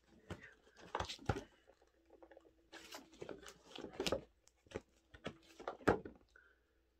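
Cardboard shipping box being handled and turned over in the hands: an irregular run of scrapes, rubs and light knocks on the cardboard, the loudest near the end.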